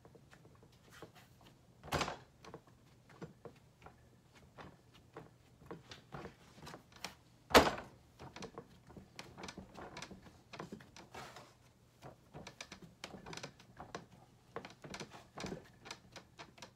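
Clay-working tools and clay being handled and set down on a work table: many light knocks and clicks, with two louder thumps, one about two seconds in and the loudest a little before the middle.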